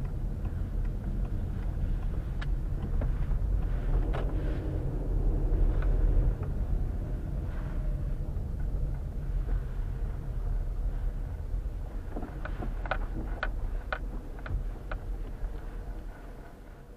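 Car driving slowly on snow-packed streets, heard from inside the cabin: a steady low engine and road rumble with scattered clicks and creaks. Near the end comes a run of sharp ticks, about two a second.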